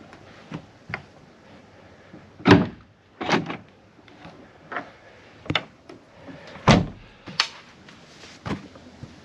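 A series of thumps and knocks as a person moves about in a pickup truck bed, the loudest about two and a half seconds in and again near seven seconds, with soft shuffling between.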